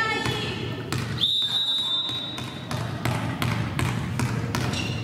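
A referee's whistle gives one steady blast of about a second and a half, a little over a second in, signalling the server to serve. It sounds over the echoing hum of a sports hall, with repeated thuds of a volleyball bounced on the floor.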